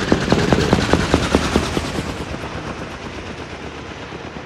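Water-bombing helicopter's main rotor beating rapidly, about six thumps a second, fading after about two seconds to a quieter steady running noise.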